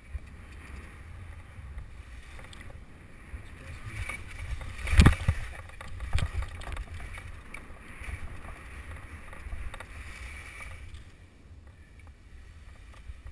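Skis hissing through snow while wind rumbles on the microphone, with a loud thump about five seconds in and a smaller one about a second later. The hiss dies down near the end as the skier slows to a stop.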